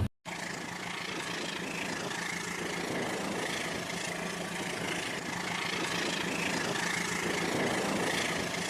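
Battery-powered toy train running on its track: the small electric motor and wheels make a steady whir with a constant hum, starting just after a brief dropout at the beginning.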